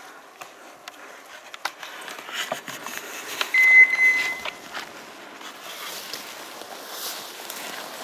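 Footsteps crunching and crackling through dry pine needles and dead bracken. About halfway through, a single steady high-pitched tone lasting about a second stands out as the loudest sound.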